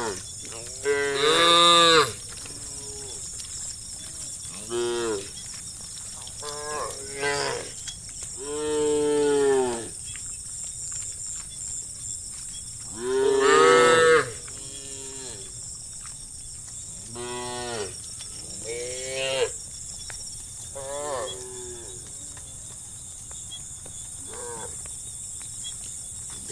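Cattle mooing repeatedly, about a dozen separate moos of varying length, each rising and falling in pitch, the longest and loudest drawn out for a second or more. A steady high-pitched buzz runs underneath.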